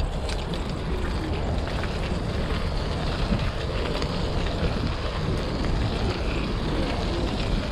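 Steady wind rumble on a chest-mounted action camera's microphone while riding a bicycle, mixed with the rolling noise of the tyres.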